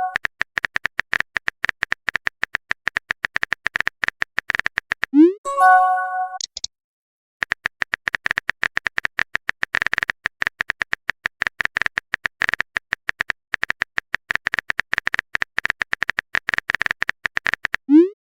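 Rapid phone-keyboard tap clicks of on-screen typing, many per second. About five seconds in comes a short rising chime, a message notification. The clicks stop for under a second soon after, then resume.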